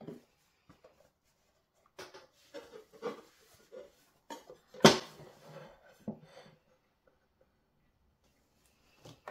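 Clatter and knocks of a metal bundt cake pan and ceramic plate being turned over together and set down on a wooden board, with one sharp knock about five seconds in.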